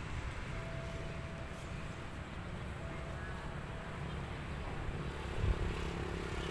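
Town street ambience: distant motorcycle and car traffic under wind rumbling on the microphone, with a faint held tone twice in the first half.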